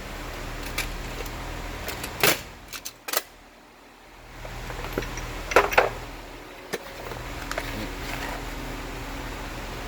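Metal hand tools clacking and clinking as they are handled in a tool chest drawer, a few sharp knocks over a steady background hum.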